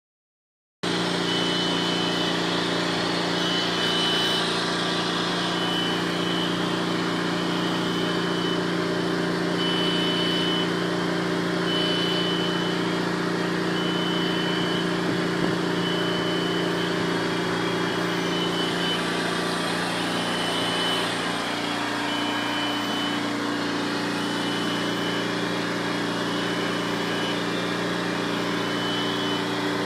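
Ice cream machine running, its refrigeration compressor and motors giving a steady hum, with a short high tone repeating on and off. The hum shifts slightly about 21 seconds in.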